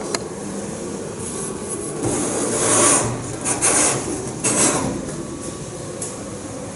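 Glass specimen jar being handled and turned on a tabletop, giving a few scraping bursts, the loudest about three seconds in.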